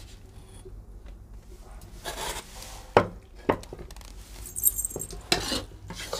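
Metal kadhai full of roasted gram-flour mixture lifted off the stove and set down on a tiled floor: two sharp metal knocks about half a second apart, with cloth rustling and light scrapes around them.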